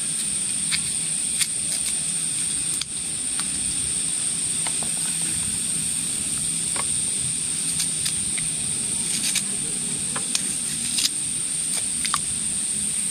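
Steady high-pitched insect drone, with scattered soft clicks of a knife slicing through a red onion over a cooking pot.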